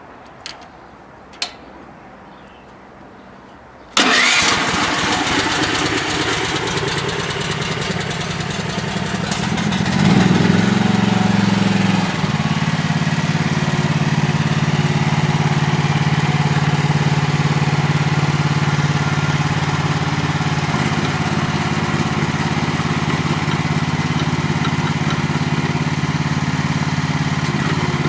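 Two sharp clicks, then the mini excavator's small gasoline engine starts abruptly about four seconds in and runs steadily. Its speed rises around ten seconds in, then settles into an even run with a steady low hum.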